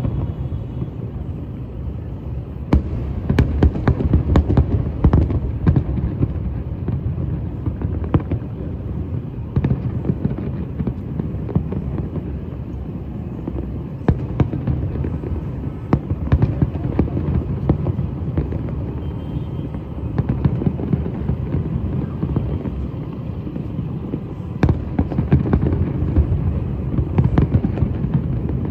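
Fireworks going off in quick runs of sharp bangs and crackles, three clusters of them, over a steady low rumble.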